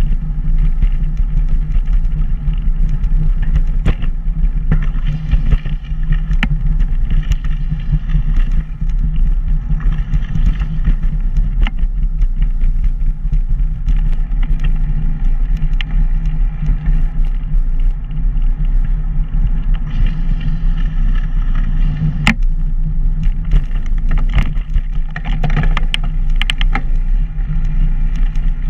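Steady low rumble of wind buffeting and road vibration on a bicycle-mounted action camera while riding, with scattered sharp clicks and rattles from the bike, several of them close together near the end.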